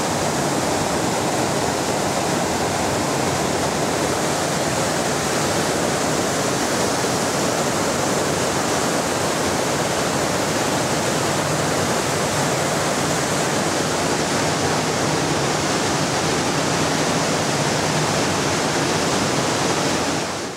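Steady rush of churning seawater in a cruise ship's wake, a constant hiss with no let-up.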